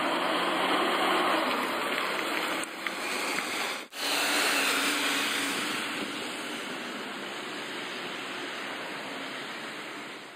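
2008 GMC Sierra 2500HD diesel pickup towing a fifth-wheel camper driving past: a steady rush of engine and road noise. There is a brief break about four seconds in, and the sound fades gradually over the last few seconds as the rig moves away down the highway.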